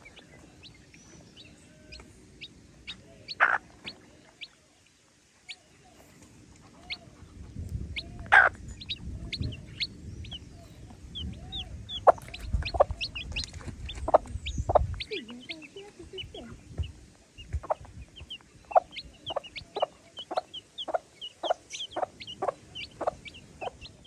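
Baby chicks peeping over and over in short high chirps while the mother hen clucks, with a few louder clucks early on and a steady run of about two clucks a second near the end: a hen calling her chicks to food. A low rumble runs underneath through the middle.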